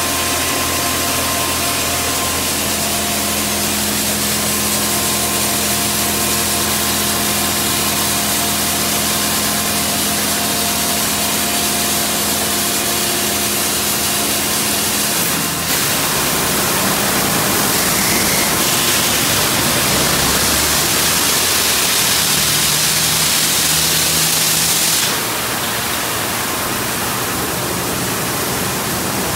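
D&S Quicksilver touchless car-wash gantry running: a steady machine hum with water spraying. About halfway through the hum stops and a louder hiss of spray takes over, then drops back somewhat a few seconds before the end.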